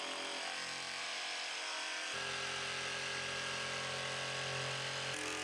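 Cordless jigsaw running steadily as it cuts along the edge of a thin tongue-and-groove pine board. It vibrates hard enough to shake the clamped setup around.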